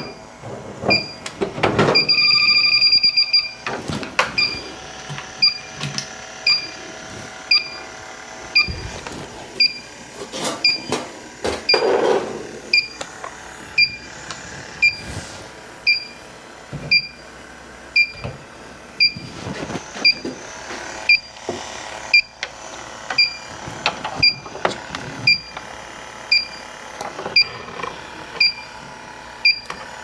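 Electronic beeping: a short, high two-tone beep repeating steadily about every 0.8 seconds, with one longer held beep about 2 seconds in. Scattered clicks and knocks of handling between the beeps.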